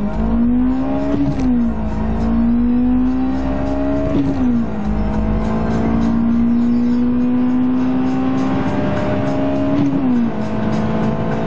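Honda Civic EG6's 1.6-litre B16 VTEC four-cylinder engine under hard acceleration, heard from inside the cabin. It revs up high, and its pitch drops at each of three upshifts: about a second in, about four seconds in and near the end. The clutch is slipping, which the owner says is felt more than heard.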